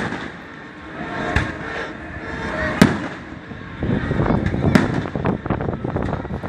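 Fireworks going off: single sharp bangs about every second and a half, then from about four seconds in a dense run of crackling bursts.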